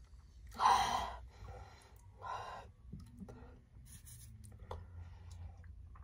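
A person gasping for breath between chugs of soda: a loud exhale about half a second in and a second, smaller breath about two seconds in.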